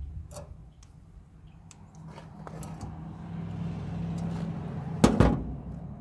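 Light metallic clicks of hand tools being handled over a steady low motor hum that grows louder midway, then one loud knock about five seconds in.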